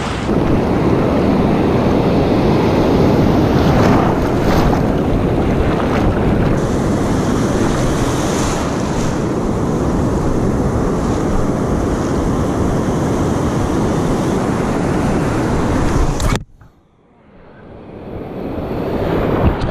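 Ocean surf breaking and washing around a wader in the shallows, a loud, steady rush with wind buffeting the microphone. About sixteen seconds in it drops away suddenly, then swells back up.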